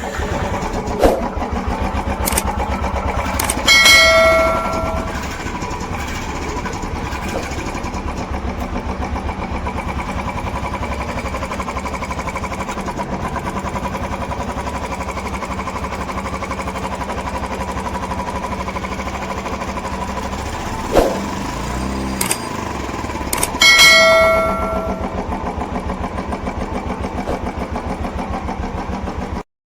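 Royal Enfield Classic 350 single-cylinder engine starting and idling steadily, with its new decompressor spring and pin just fitted in the timing cover. Two brief high ringing tones, about four seconds in and again near the end, are the loudest moments.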